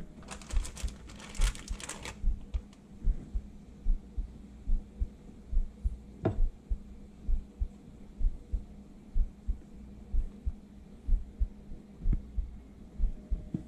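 Breaded walleye fillet sizzling in hot oil in a cast-iron skillet for about two seconds near the start. Through the rest come dull low thumps, two or three a second, over a steady low hum, with a single sharp click about six seconds in.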